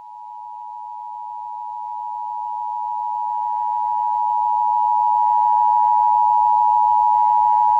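Emergency Alert System two-tone attention signal: two steady tones sounding together, about 853 and 960 Hz. It grows steadily louder and cuts off sharply near the end, the signal that an emergency alert message is about to follow.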